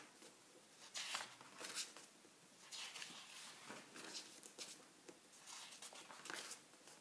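Book pages being turned and brushed by hand: a series of soft paper rustles, about one every second.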